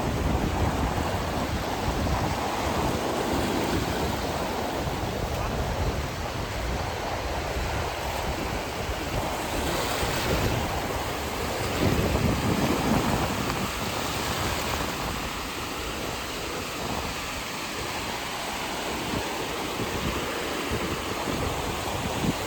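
Sea surf washing onto the beach, a steady hiss that swells now and then, with wind buffeting the microphone as a gusty low rumble.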